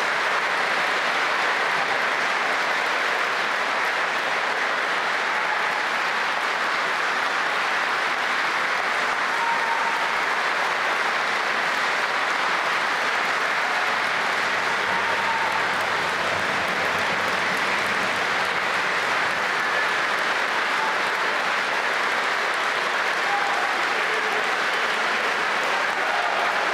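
Large audience applauding steadily and without a break: a long, sustained ovation of many people clapping.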